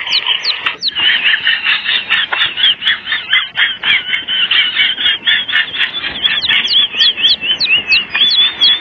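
Birds chirping continuously: a busy stream of high calls with quick, sharply falling notes repeated a few times a second, thickest near the start and again toward the end.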